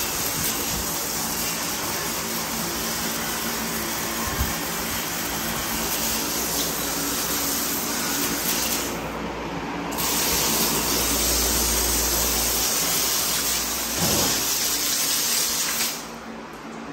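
Water spraying in a steady hiss as the area is hosed down. The spray cuts out for about a second some nine seconds in, then stops shortly before the end.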